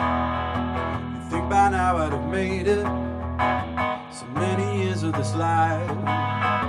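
Hollow-body electric guitar strummed in a slow song, with a man singing over it from about a second in.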